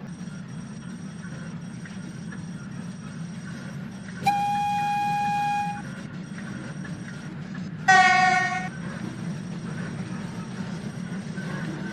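Train horn sounding twice: a steady blast about a second and a half long, then a shorter, louder blast that falls slightly in pitch. A steady low rumble runs underneath.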